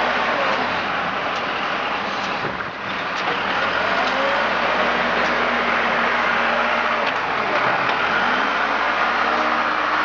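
Engine of heavy paving equipment running steadily, with a brief drop in level a little under three seconds in.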